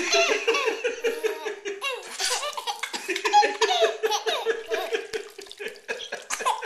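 A baby laughing hard, a long run of belly laughs, pulse after pulse with quick breaths between.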